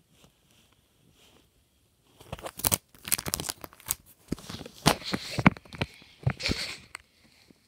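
Handling noise: rustling and crinkling of a plastic trading-card binder and the phone held over it, with sharp clicks and crackles, starting about two seconds in and stopping shortly before the end.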